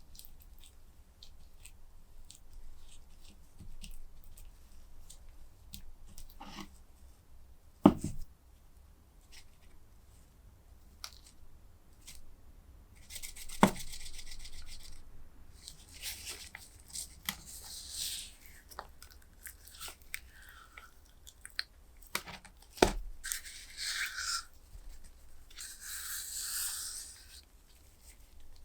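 Handling noises: bursts of rubbing or scraping with a few sharp knocks, the loudest about 8 seconds in.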